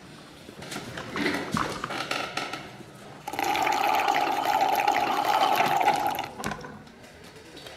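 Slurping through a drinking straw from a glass: one loud slurp starting about three seconds in, lasting about three seconds and then cutting off.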